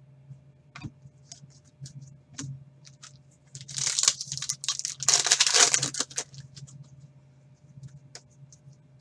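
Foil wrapper of a hockey card pack torn open in two rips near the middle, the second a little longer, among light clicks and rustles of cards being handled.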